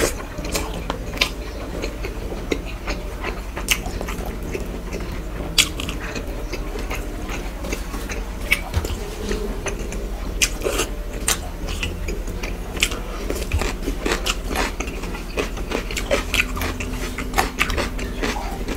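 Close-miked chewing and mouth smacks of a person eating rice and fish curry by hand: irregular wet clicks and crunches over a steady low hum.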